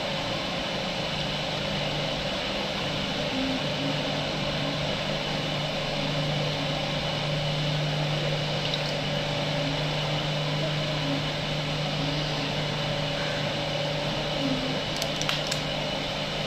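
Steady mechanical hum of a household appliance or fan running, with a constant low drone. A few light clicks come near the end.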